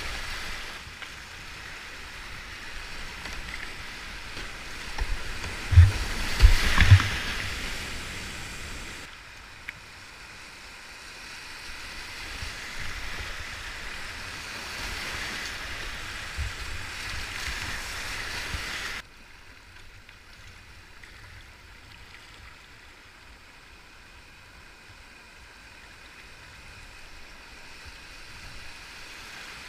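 Whitewater rushing over rocks around a kayak running a steep boulder rapid, with a few heavy thumps about six to seven seconds in. The rush drops abruptly to a quieter level twice.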